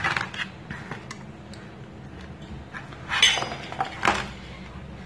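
A knife and pieces of aloe vera leaf being handled on a tabletop: a few light clicks and clinks, then two louder scraping, rustling noises about three and four seconds in.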